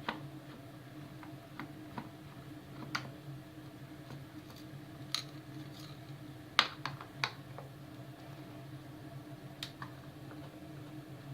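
Scattered sharp clicks and taps of small parts being handled as a circuit board is taken out of a military surplus radio speaker unit, the loudest click a little past halfway, over a low steady hum.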